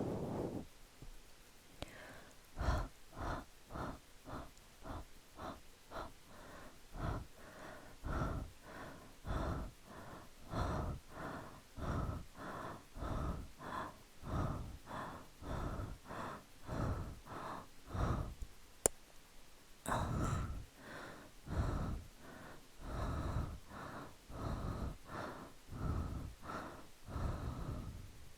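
A person breathing out in short, rhythmic puffs close to the microphone, about two to three a second, with a brief pause a little past halfway.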